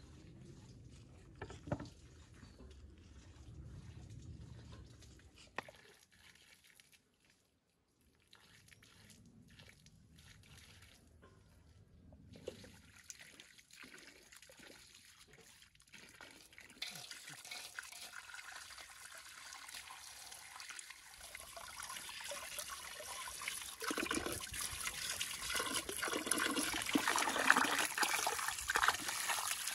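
Water from a garden hose running and splashing into a metal basin as hands wash a trout in it. The water starts about halfway through and grows steadily louder toward the end, after a quiet first half with a few soft knocks.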